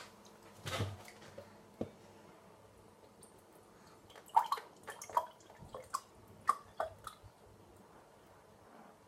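Faint kitchen handling sounds: a couple of soft knocks, then a run of a dozen or so small clicks and drip-like plinks between about four and seven seconds in.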